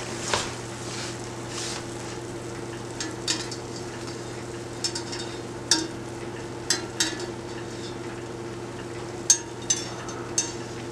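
Zeppole dough frying in hot oil with a steady sizzle over a low hum, while a wire spider skimmer turns the pieces and clinks and scrapes against the enamelled pot now and then.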